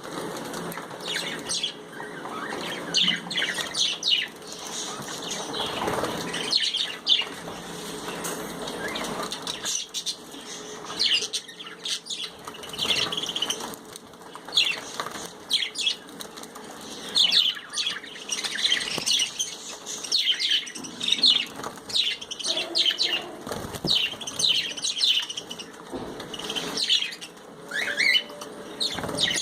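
Budgerigars chirping busily with quick, high chirps throughout, mixed with bursts of wing flapping as they bathe.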